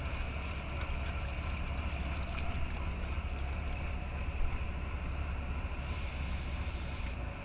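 Fishing boat's engine running steadily under way, with wind buffeting the microphone. A short hiss sounds about six seconds in.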